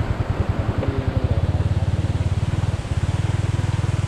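Motorcycle engine running with a fast, even pulsing beat.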